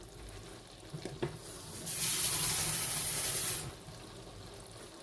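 Kitchen tap turned on and running steadily for about a second and a half, filling a glass bowl with water; a few light clicks just before it.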